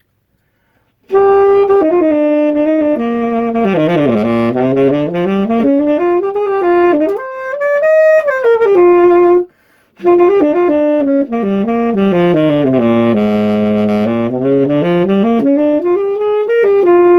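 A 1950s Keilwerth New King tenor saxophone playing two phrases of runs. They sweep down to its lowest notes and back up, with a short break about halfway. It plays well throughout the range.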